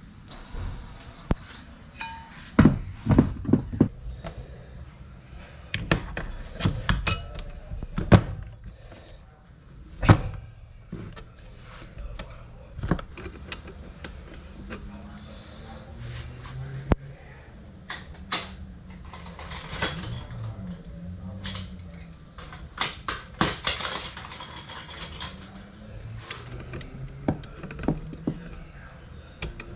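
Metal parts of a Hilti TE 1000 demolition hammer being handled and worked on by hand: irregular clinks, taps and knocks of metal on metal, with a cluster of sharper knocks about three seconds in and single loud knocks around eight and ten seconds in.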